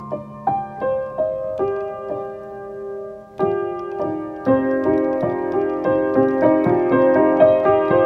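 Solo piano improvisation: single notes ring out one after another, then about three and a half seconds in the playing grows louder and fuller, with chords and notes struck more often.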